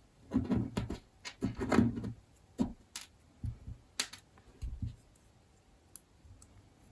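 Small parts of a pocket knife handled during reassembly: a quick run of light clicks, taps and scrapes of metal and G10 pieces over the first five seconds, then only a few faint ticks.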